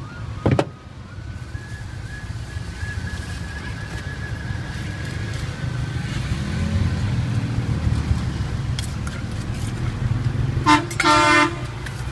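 Wooden pestle knocking twice in a wooden mortar at the start, then a steady rumble of street traffic. Near the end a vehicle horn toots twice in quick succession, a short toot then a longer one, the loudest sound here.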